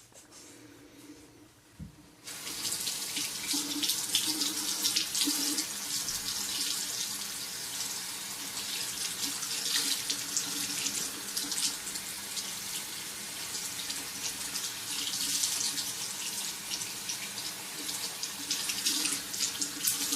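A sink tap turned on about two seconds in after a short knock, then water running steadily into the sink with irregular splashing as hair conditioner is rinsed off a freshly shaved head.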